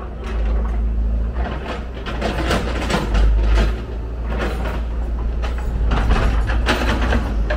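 Hyundai R170W wheel excavator's diesel engine running steadily under load as the machine swings its boom, with irregular clattering over the engine note.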